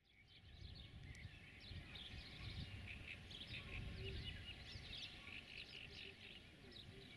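Outdoor ambience: several birds chirping and singing over a low background rumble, fading in during the first second.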